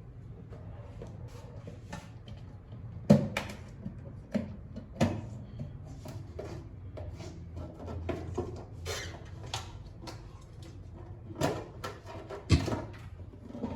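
Scattered knocks and clicks of objects being handled and set down, the sharpest about three seconds in and again near the end, over a low steady hum.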